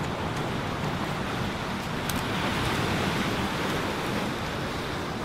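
Steady wash of sea surf breaking on a rocky shore, with a few faint clicks of footsteps on loose beach stones.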